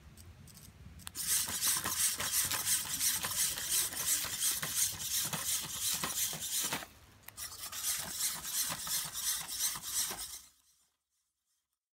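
Hexapod walking robot's hobby servo motors whirring and grinding as its legs step, a rasping buzz with many quick clicks. It starts about a second in, breaks off for a moment near the seven-second mark, then runs again until it stops near the end.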